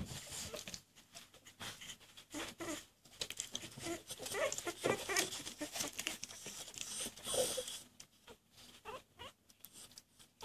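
Very young puppies giving short, high squeaks and whimpers as they crawl and scuffle over each other, with the rustle and scratch of their paws on towels. The squeaking is busiest in the middle and dies down near the end.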